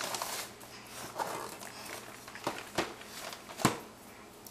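Gift-wrapped cardboard box being handled: paper rustling, with a few sharp knocks as it is set down on a tile floor, the loudest near the end.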